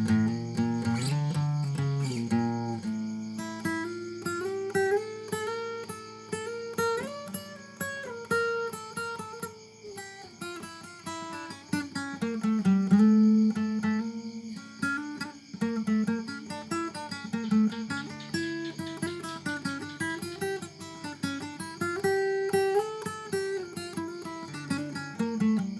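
Acoustic guitar music: plucked notes playing a moving melody over bass notes.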